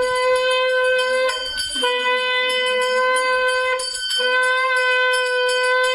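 A conch shell (shankh) blown in long, steady, held blasts on a single note, as part of a Hindu puja. One blast ends about a second in, a second lasts about two seconds, and a third starts around four seconds in and is still sounding at the end.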